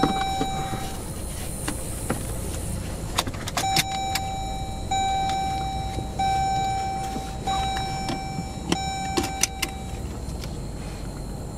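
A car's electronic warning chime sounding in repeated beeps of about a second each, over the low rumble of the car rolling in neutral. The beeps pause for a couple of seconds after the first one and stop shortly before the end, and a few sharp clicks come in the middle.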